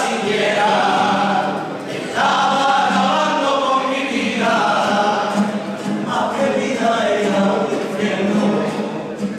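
A carnival comparsa singing a copla together as a choir, in sung phrases of about two seconds each.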